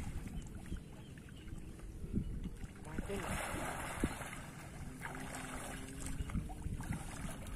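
Pond water splashing and sloshing as a person plunges down into it to grab a monitor lizard, loudest about three seconds in, over a low wind rumble on the microphone.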